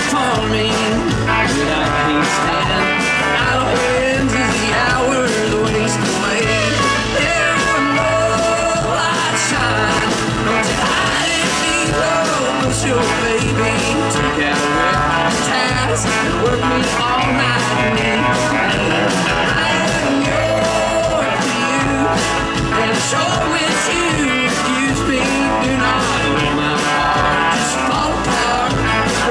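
Live country band playing a song with a steady beat.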